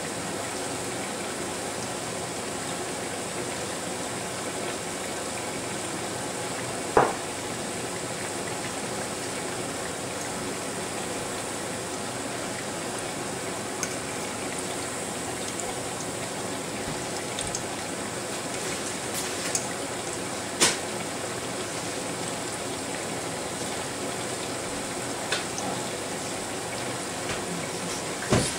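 Fleischkrapfen frying in hot fat: a steady sizzle with spattering. A few short sharp knocks stand out over it, the clearest about seven seconds in and about twenty seconds in.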